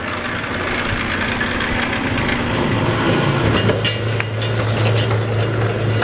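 LD-007 scrap wire stripping machine's 1.5 kW electric motor running as a 6-gauge cable is fed through its rollers and blade, slitting off the insulation. A low steady hum strengthens about halfway through, with scattered clicks over the second half.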